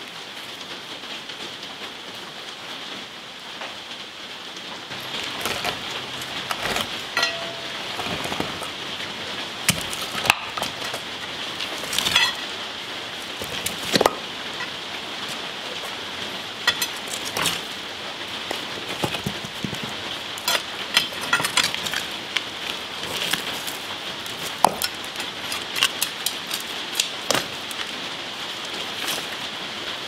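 Irregular sharp clinks and knocks of broken concrete chunks and a steel pry bar as an old concrete floor slab is pried up and the rubble shifted, starting about five seconds in, over a steady hiss.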